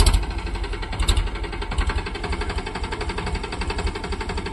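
Powertrac Euro 50 tractor's diesel engine running steadily under load as it pulls a seed drill through the field, with a fast, even chug.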